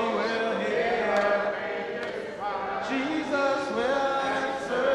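Congregation singing a gospel hymn a cappella, many voices together holding and sliding between notes.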